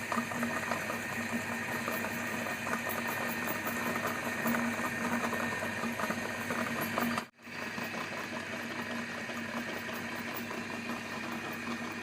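Electric meat grinder motor running steadily with a steady hum; the sound cuts out for a split second about seven seconds in, then resumes.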